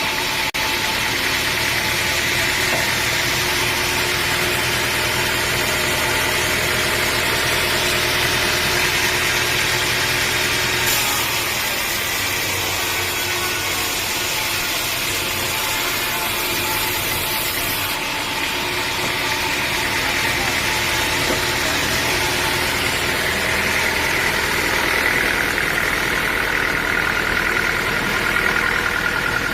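A sawmill's engine running steadily.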